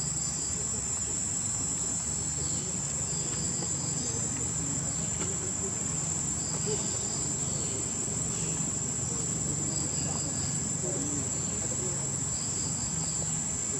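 Steady high-pitched drone of insects, with short chirping trills repeating every few seconds.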